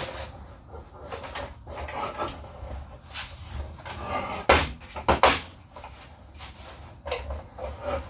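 A plastic folding table with a metal frame being handled and turned against a tent pole. Scattered knocks and clunks, the loudest a pair of sharp clunks about four and a half to five seconds in.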